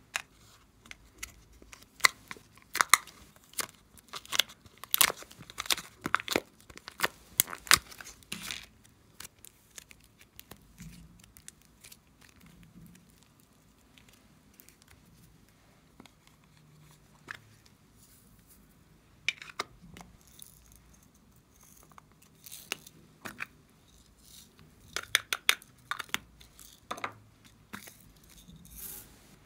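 Small plastic slime containers being handled and opened by hand: bunches of sharp plastic clicks and crinkling, thickest in the first third, then sparser with a quiet stretch in the middle and another bunch near the end.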